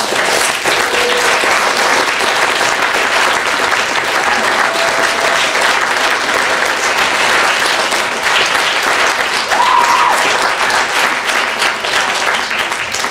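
Theatre audience applauding steadily, a dense crowd of clapping hands.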